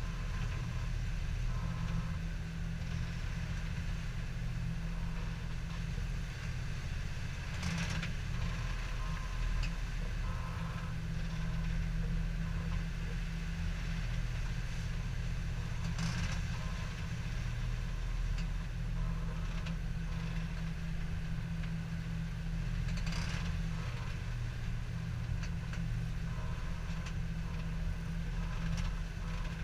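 Steady low drone of a sailing catamaran's inboard diesel engine running under way. A few faint knocks come about 8, 16 and 23 seconds in.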